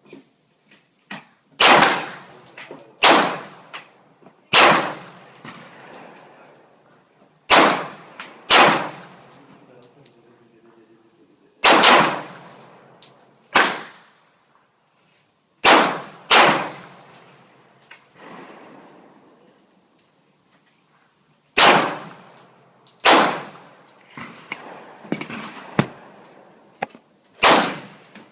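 Shots from a 9mm semi-automatic pistol fired slowly at a target: about a dozen sharp reports, one to three seconds apart, each with a short ringing tail.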